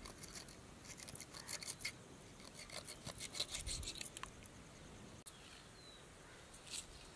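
Knife scraping a fish on a flat stone slab, a quick run of short scratchy strokes that stops about five seconds in.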